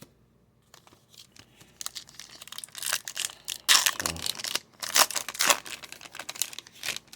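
A 2023-24 Upper Deck MVP Hockey card pack's wrapper being torn open and crinkled by hand: a run of crackling rips starting about two seconds in, loudest in the middle.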